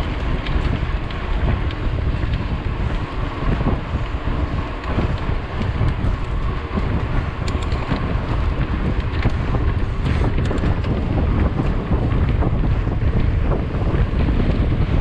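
Heavy wind buffeting the microphone of a mountain biker's camera while riding at speed, a steady low rumbling, with a few light clicks and rattles from the bike over the trail.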